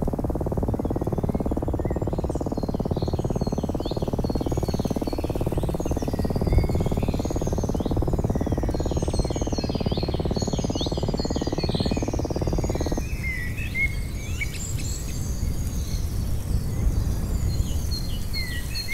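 A designed low, noisy drone that swooshes with a slow repeating sweep, like a flanger effect, cutting off abruptly about 13 seconds in. Birdsong and a steady high insect trill run over it and carry on alone after the cut.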